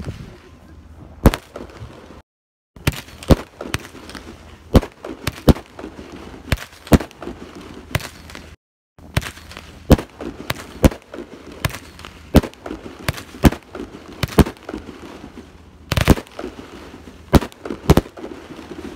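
Consumer firework cake firing: an irregular string of sharp bangs from shots launching and bursting overhead, about two or three a second. The sound cuts out completely twice for a moment, an audio dropout.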